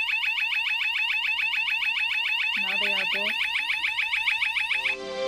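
A 1byone driveway alert receiver sounds its electronic alarm: a loud, rapidly repeating warbling chirp that cuts off suddenly about five seconds in. It is triggered by a hand waved over the paired motion sensor, showing that the sensor has detected motion.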